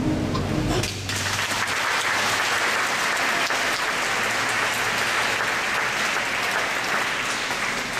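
A choir's last held chord ends about a second in, and audience applause follows, steady and sustained.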